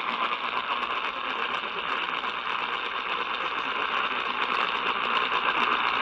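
Static from the speaker of an Eton Elite Traveler portable radio tuned to an AM station at 950 kHz: steady hiss with scattered faint crackles and a faint steady whine, with no programme audio coming through.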